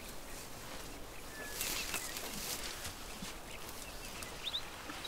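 African elephant browsing a speckboom bush: leafy branches rustling and crackling as the trunk pulls at them, loudest about one and a half to two and a half seconds in. Short bird chirps about four and a half seconds in.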